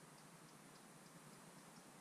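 Near silence: faint steady hiss with a faint, regular high-pitched ticking, about five ticks a second.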